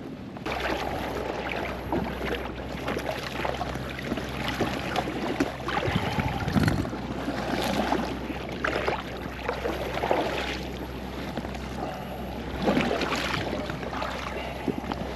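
Water sloshing and splashing around a small fishing boat, in uneven swells, over a steady low hum. A heavier low splash or knock comes about six and a half seconds in.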